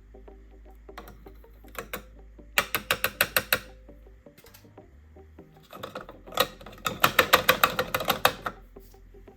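Two bursts of rapid mechanical clicking, about ten clicks a second, the first about a second long and the second about a second and a half, over background music.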